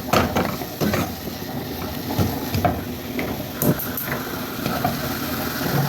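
A spoon stirring chopped onions and beef frying in a pan, knocking and scraping against the pan several times, over a steady hiss.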